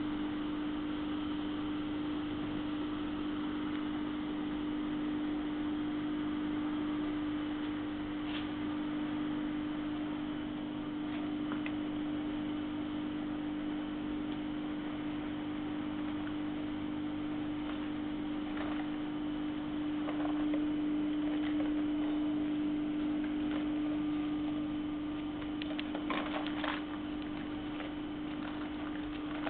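Shrink-wrapping machine running with a steady hum and one strong steady tone. A few brief crackles of plastic shrink film being handled, the most about three quarters of the way in.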